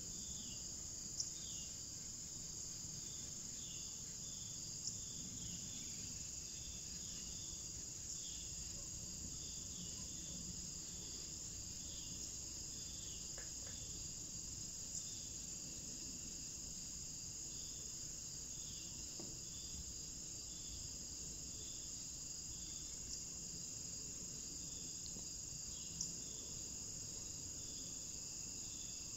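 Steady chorus of crickets and other insects: a continuous high-pitched trill, with a lower short chirp repeating about once a second. A few brief clicks stand out, about a second in, around five seconds in and near the end.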